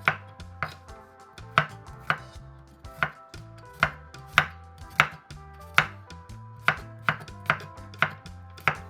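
A knife chopping food on a cutting board in slow, uneven strokes, about one and a half a second.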